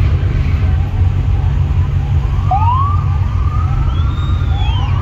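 Police sirens wailing in the distance: several overlapping rising-and-falling glides that come in about halfway through. Underneath is a steady low rumble.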